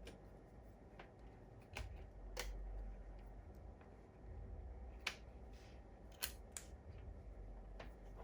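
Scattered light clicks and taps, about eight in all, with a low rumble of handling in between: small tools and laptop parts being handled on a repair bench.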